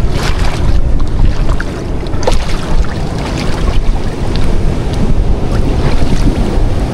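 Sea surf washing against rocks and splashing into a rock pool, with irregular splashes of water over a heavy rumble of wind on the microphone.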